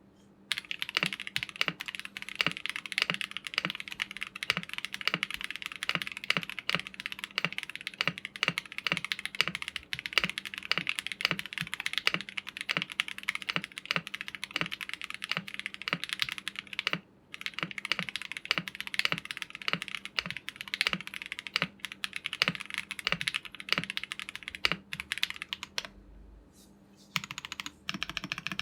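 Typing on an MW65 mechanical keyboard fitted with Everglide Tourmaline Blue and Glorious Panda switches: a fast, continuous run of keystrokes, with a short pause about 17 seconds in and a longer one near the end.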